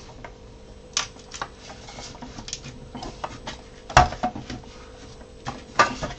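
Scattered clicks and knocks of large 3D-printed plastic droid leg parts being handled and set against the bench and each other, with the loudest knock about four seconds in.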